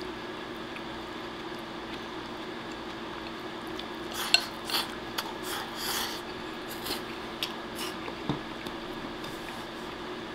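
Eating from a ceramic rice bowl with chopsticks: chopsticks click against the bowl and egg-and-rice is shovelled in and slurped, in a cluster of short noisy bursts from about four to eight seconds in. A low steady hum runs underneath.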